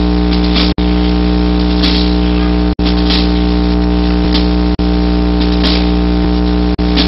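Loud, steady low hum and buzz over a hiss, unchanging in pitch, cutting out for an instant about every two seconds.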